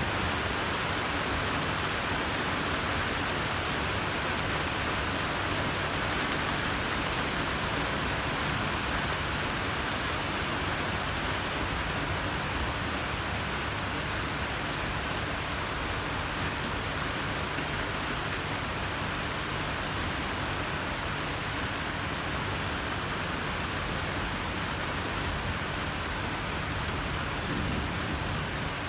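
Heavy rain falling steadily, an even hiss of rain on surfaces, with a brief low rumble near the end.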